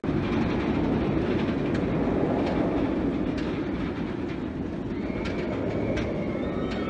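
Roller coaster train rolling along its track: a steady low rumble with a few faint clicks.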